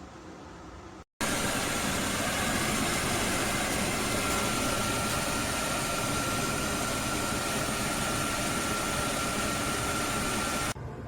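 Kesnos 80-pint dehumidifier running, a steady rush of fan air with a thin steady whine joining a few seconds in. It starts abruptly about a second in and cuts off just before the end.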